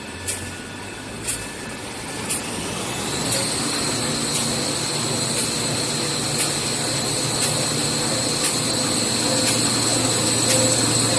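A 1350 mm gluing-lamination toilet paper machine production line running: a steady mechanical hum with a high whine that rises and then holds about three seconds in. A sharp click repeats about once a second.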